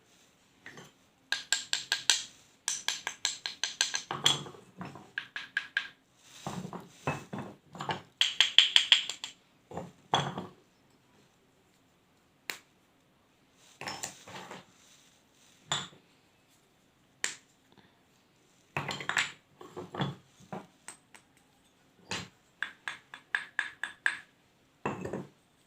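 Pieces of a brittle fired-clay pot crunching, in clusters of rapid sharp cracks with short pauses between them.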